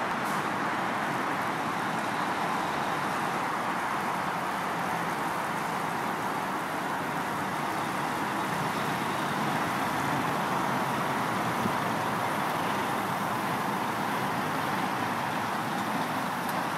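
Scania R440 drawbar lorry's diesel engine running as the truck pulls slowly away and passes close by, over a steady road and traffic noise.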